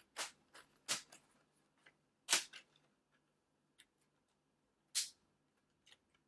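Plastic retaining clips of a laptop screen bezel snapping loose as a plastic pry tool works around its edge: four sharp snaps, the loudest just over two seconds in, with fainter clicks between.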